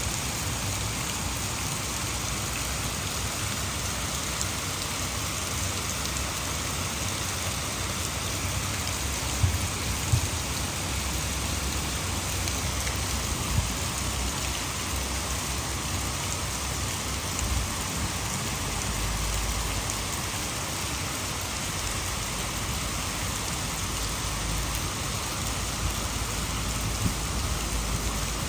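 Heavy rain falling steadily, with a few sharp drops ticking close by around the first third and a low rumble in the second half.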